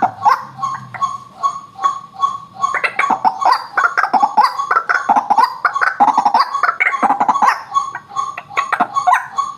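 White-breasted waterhen (ruak-ruak) calling in a steady series of repeated notes, about three a second, with a louder, more jumbled run of calls in the middle.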